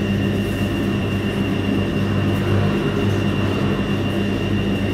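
Ipso WE165 35 lb commercial front-load washer running near the end of its cycle: a steady mechanical drone with a low hum and a faint high whine over it.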